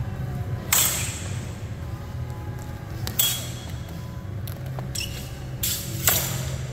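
Steel training longswords clashing in sparring: three loud ringing clanks, about a second in, at about three seconds and near the end, with a few lighter clinks between. A steady low hum runs underneath.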